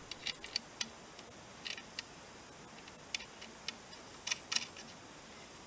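A string of light, irregular clicks and taps, about a dozen spread across a few seconds with a small cluster near the end, over a faint steady hiss: small handling noises.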